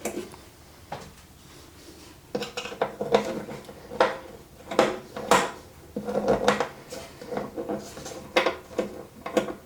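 Small metal clicks, scrapes and clinks of a small Phillips screwdriver working screws out of a metal clock's back, with the loose screws and metal parts knocking together, some clinks ringing briefly.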